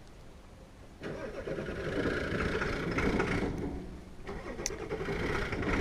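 A vehicle engine starts about a second in and runs. Its sound dips briefly past the middle, then rises again.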